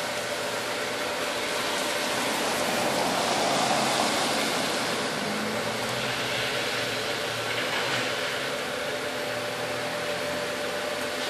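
Toy bubble machine's fan motor running steadily: an even whirring hiss with a faint steady hum.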